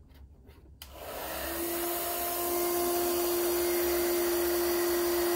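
Hair dryer switched on about a second in, blowing into a plastic jug used as a wind reservoir, and a metal organ flue pipe set in the jug sounding one steady note over the dryer's rush.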